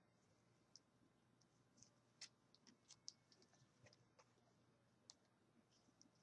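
Near silence with faint, irregular clicks and ticks from hockey trading cards being handled and flipped through.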